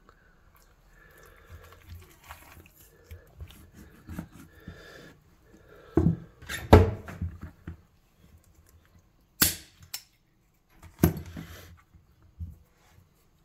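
Hands handling a raw whole rabbit carcass on a plastic cutting board: soft, wet handling of the meat, broken by several short, sharp knocks against the board, the loudest about halfway through.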